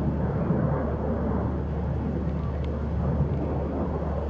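Distant steady rumble of an F/A-18F Super Hornet flying in formation with an FG-1D Corsair.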